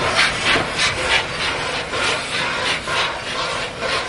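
LNER Peppercorn A1 Pacific 60163 Tornado's three-cylinder steam locomotive working under way with an even chuff of exhaust beats, about three a second, each a sharp hiss.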